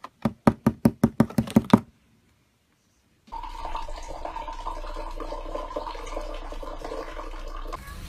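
A quick run of about a dozen knocks on a cardboard box in under two seconds. After a pause of silence, water poured from a bottle into a drinking glass in a steady stream.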